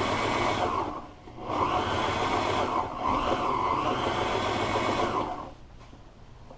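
Portable sewing machine running, stitching a pleat line through upholstery fabric backed with 1/4-inch scrim. It sews for about a second, stops briefly, then sews again for about four seconds and stops near the end.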